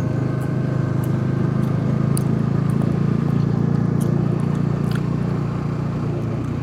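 Motorcycle engine running steadily as the bike rides along at an even speed.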